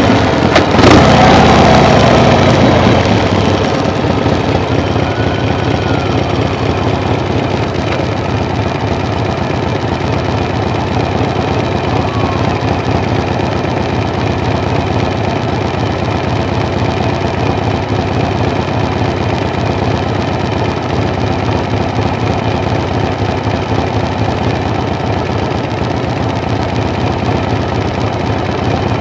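Steady drone of a running engine. In the first three seconds a louder sound falls in pitch and fades, then the drone holds even.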